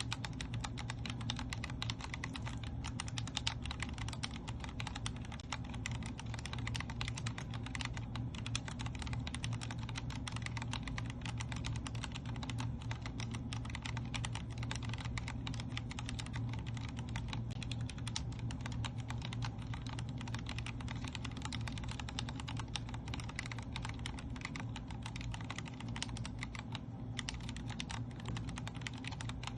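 Continuous fast typing on a Vortex Core 40% mechanical keyboard with Cherry MX Speed Silver linear switches: a dense, unbroken stream of key clicks.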